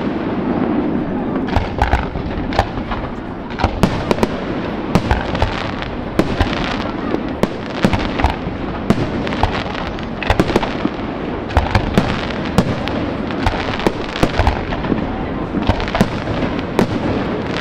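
Fireworks display: aerial shells bursting in a rapid, irregular series of sharp bangs, several a second at times, over a continuous wash of noise.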